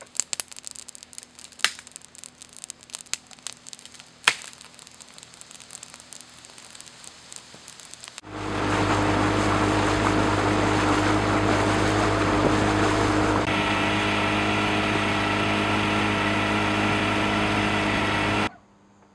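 Wood campfire crackling, with a few sharp pops. Then a boat's motor runs steadily and much louder for about ten seconds, cutting off abruptly near the end.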